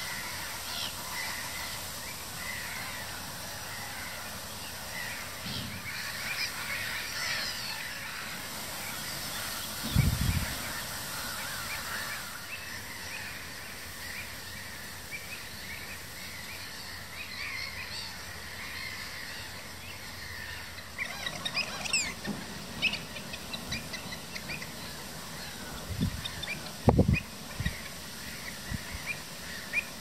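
Many wetland birds calling together, a steady chatter of short overlapping calls. A few low thumps break in, about ten seconds in and again near the end.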